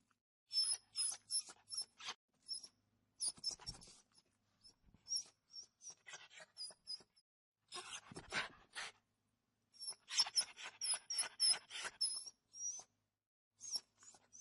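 Small animal making many short, high-pitched squeaks mixed with brief noisy bursts, coming in irregular clusters with short pauses between.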